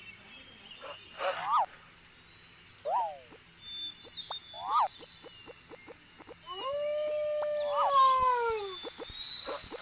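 Animal calls: short yelps that rise and fall in pitch, repeating every second or two, with one longer arching howl-like call about two thirds of the way through, over a steady high hiss.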